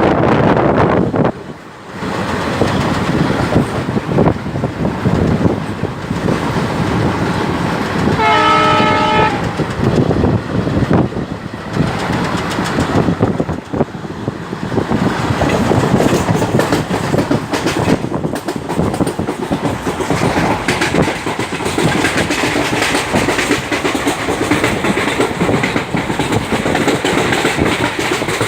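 Train running on the rails with a steady rumble and wheel clatter. Its horn sounds once for about a second, some eight seconds in.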